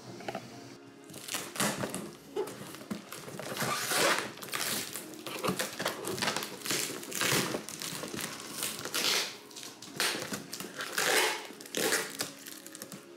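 Clear plastic packing tape being peeled and ripped off a cardboard box by hand, in a string of irregular crinkling rips with the cardboard rustling, starting about a second in.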